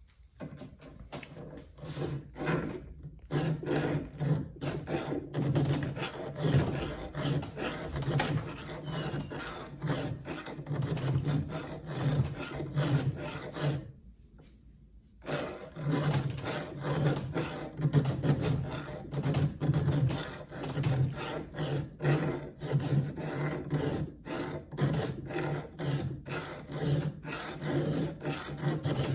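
Hand file rasping back and forth on the steel cutter teeth of a chainsaw chain in quick repeated strokes, shaping the tooth's side plate and working corner, with a short pause about halfway through.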